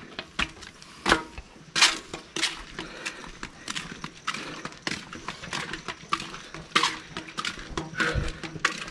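Footsteps on a hard concrete path, a sharp tap at each step at an uneven walking pace.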